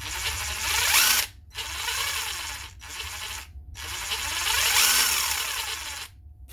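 WerkTough cordless impact wrench with a new brushed motor, run free in four trigger pulls, its pitch rising and falling as the variable trigger is squeezed and eased. It sounds quite rough, like a bag of bolts rocking, which the owner places in the gear at the nose.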